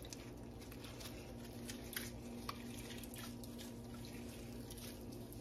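Soft drips and small splashes of hot whey as mozzarella curd is dipped and stretched, with scattered faint clicks over a steady low hum.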